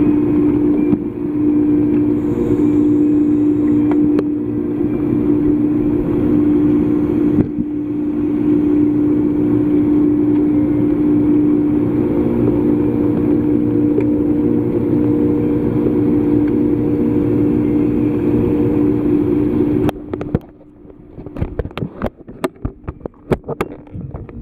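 Steady machine hum heard underwater, a low drone with one strong steady tone. About twenty seconds in it cuts off and gives way to a quick run of clicks and knocks.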